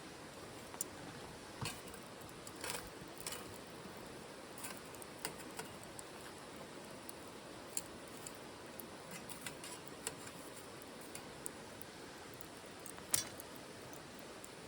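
Wood fire crackling in a titanium wood stove: irregular sharp pops and snaps over a steady soft hiss, the loudest pop near the end.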